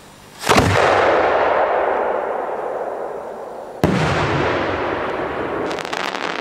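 A 4-inch aerial firework shell fired from a mortar. There is a heavy launch boom about half a second in that rumbles away, and the shell bursts with a second sharp bang about three seconds later. A brief cluster of crackles follows near the end.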